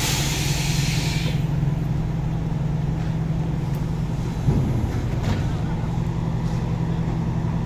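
Heavy diesel engine idling steadily, with a hiss of air in the first second or so and a brief knock about halfway through.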